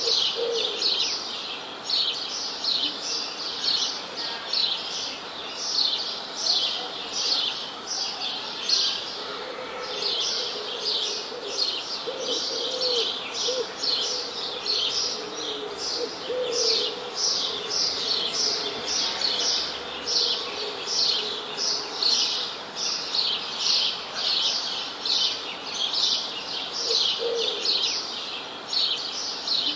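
Songbirds chirping continuously in quick, repeated high notes, a few every second. A lower, drawn-out call runs beneath them through the middle and returns briefly near the end.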